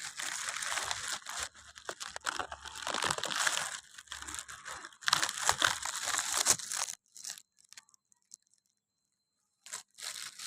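Irregular rustling and crinkling noise that stops about seven seconds in, followed by a few faint short clicks.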